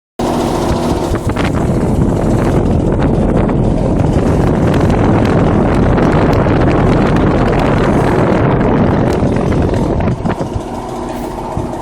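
2014 York heat pump outdoor unit running in heating mode, its fan and Bristol compressor giving a steady hum under a loud rush of air. The rushing eases about ten seconds in while the hum carries on.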